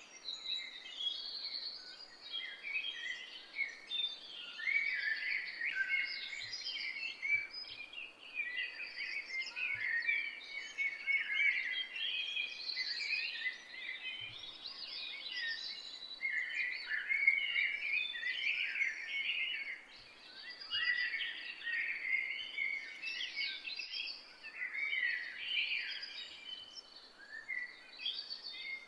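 A chorus of several songbirds singing at once, with dense, overlapping chirps and trills over a faint background hiss.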